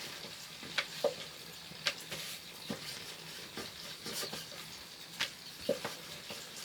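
Hot oil sizzling steadily as dough fries, with a few sharp clicks and knocks of a utensil against the pan.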